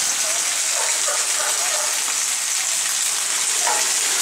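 Steady rain falling on wet pavement and puddles: an even, unbroken hiss. Faint distant voices can be heard under it.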